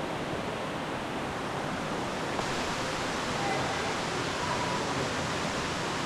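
Steady rushing of a waterfall, a continuous even roar of falling water.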